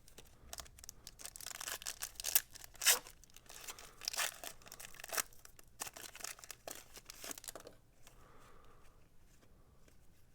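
A foil trading-card pack wrapper being torn open and crinkled, with the loudest tears about two and a half and three seconds in. After about eight seconds only faint handling remains.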